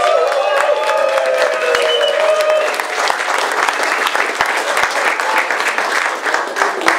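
Crowd applauding, with sustained cheering voices over the first three seconds, then clapping alone.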